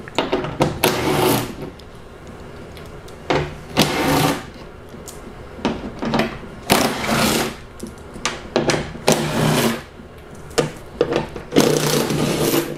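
Cordless drill with a 10 mm socket whirring in about six short runs as it backs out the bolts of the inner door panel one after another.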